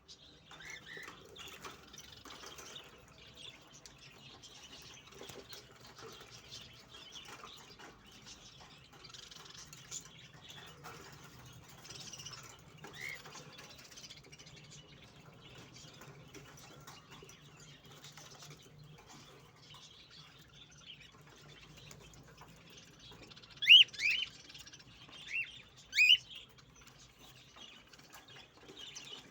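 Cockatiels chirping softly, then four loud, quick rising calls a little over twenty seconds in.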